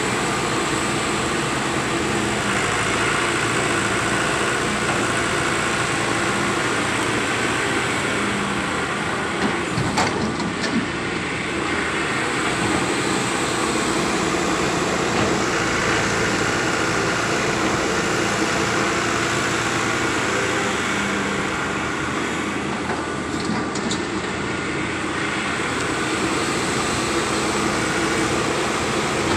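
Fiat Hitachi 150 excavator's diesel engine running steadily under work, with a sharp knock about ten seconds in and another near the end.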